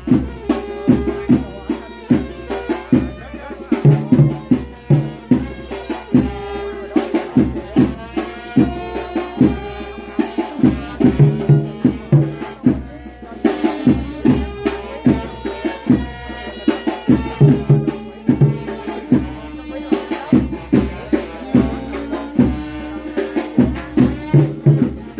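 Music with a busy, steady beat of drums and percussion under a pitched melody.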